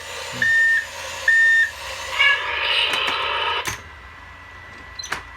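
Toy CAT backhoe's electronic reversing beeps, two high steady beeps about a second apart from its small speaker. They are followed by about a second and a half of rougher, noisier sound that ends in a click.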